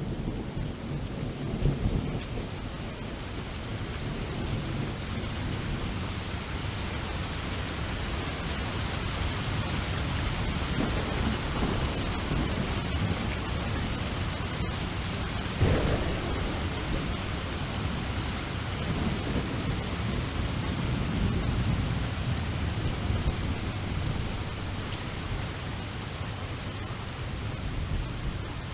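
Thunderstorm: steady heavy rain with low rolling thunder, and a sharper thunder crack about halfway through.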